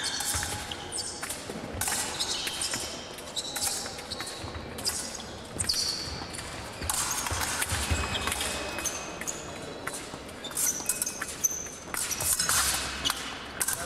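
Épée fencing in progress: short high metallic pings and sharp clicks as the blades meet, mixed with thuds and squeaks of the fencers' footwork on the piste.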